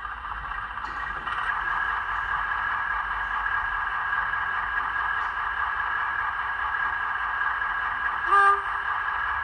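Model locomotive sound decoder playing a recorded Class 15 diesel engine through its small onboard speaker: the engine sound comes up over the first couple of seconds and settles into a steady, even running note. About eight seconds in, a single short horn toot.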